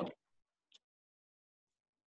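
Near silence in a pause between a man's sentences: his last word trails off at the very start, and one faint short click comes about three quarters of a second in.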